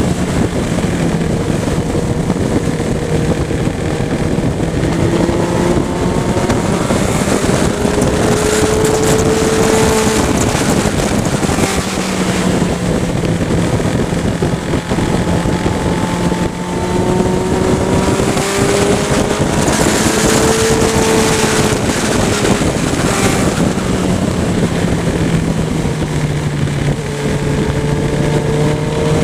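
Motorcycle engine running while riding, its pitch climbing several times as it accelerates, with wind noise on the microphone.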